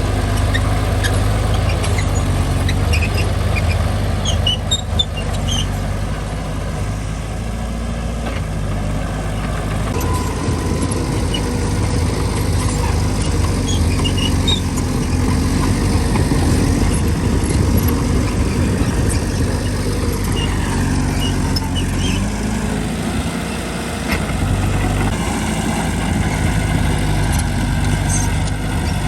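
Mini Mitsubishi bulldozer's diesel engine running steadily under working load, swelling a little in the middle and easing briefly near the end, with short high squeaks here and there.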